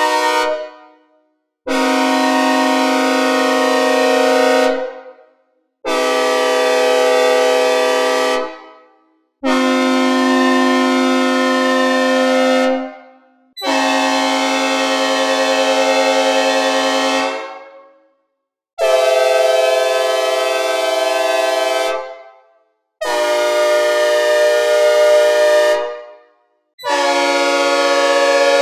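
Synthesized recreations of locomotive air horns (K5HL, K5LLA, K3HL, P5 "Old Cast", K5LA and P5A models), sounded one after another: seven separate blasts, each a steady multi-note chord about three to four seconds long that fades out, with brief gaps between.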